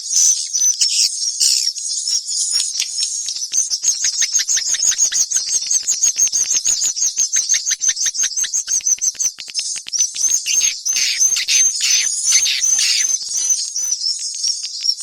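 Swiftlet call recording: continuous high-pitched twittering chirps, running into a very fast chatter through the middle, then slower, separate chirps near the end.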